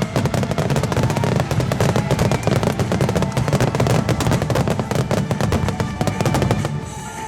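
Wide starmine fireworks barrage: a dense, rapid run of bangs and crackles, easing off near the end.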